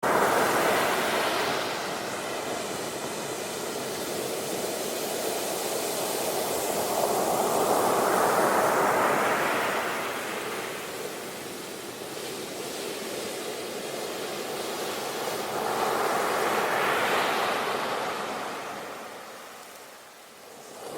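Ocean surf: waves breaking and washing up the shore, the rush of water swelling and fading about every eight seconds.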